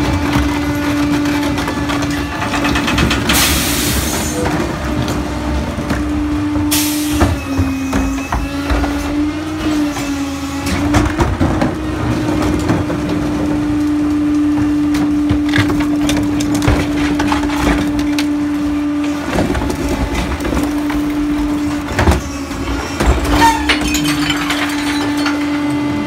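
Pak-Mor rear-loader garbage truck running with a steady hum, with two short hisses of air a few seconds in. Near the end come clunks and rattles as plastic recycling carts are tipped into the hopper.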